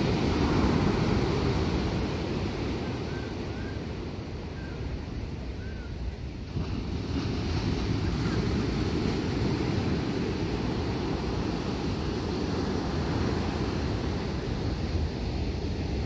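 Ocean surf washing up on a sandy beach in a steady rush, with wind rumbling on the microphone. The surf eases briefly and builds again about seven seconds in.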